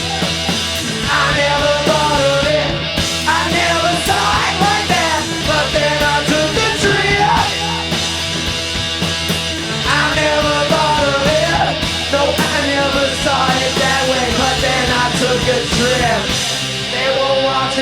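Garage rock trio playing a loud rock song live.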